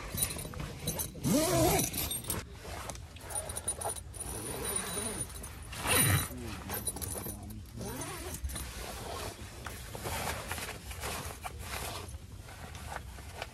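Tent nylon and sleeping bag rustling and scraping as a person moves about inside a small tent, with clicks from handling the inner tent's zip and a thump about six seconds in.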